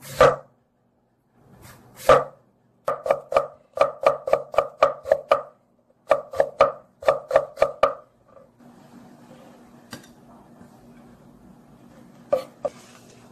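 Kitchen knife chopping through beetroot on a wooden cutting board: two single cuts, then two quick runs of strokes at about four to five a second as the slices are cut into thin strips. Afterwards a faint steady hum with a few light clicks.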